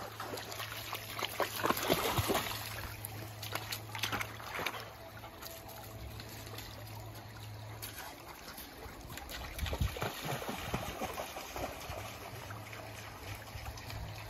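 Shallow stony stream trickling, with splashing and crunching as dogs step through the water and over the leaf-strewn bank. The splashing and crunching come loudest about two seconds in and again near ten seconds.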